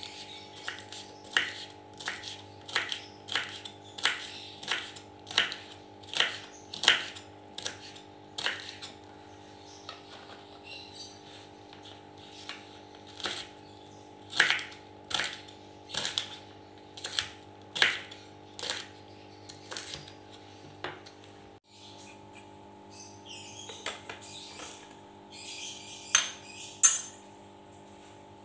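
Kitchen knife chopping red chilies on a wooden cutting board: a run of sharp chops, about one and a half a second, over a steady low hum. After a break about three-quarters of the way through come softer, scattered knocks and rustles.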